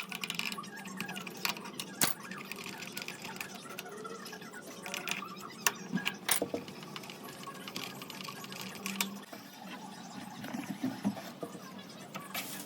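Scattered sharp clicks, taps and light metallic clatter of tools and parts being handled, over a faint steady hum.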